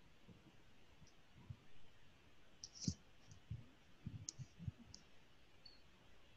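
Near silence broken by a few faint, scattered clicks and soft knocks from a computer mouse being clicked and moved on a desk.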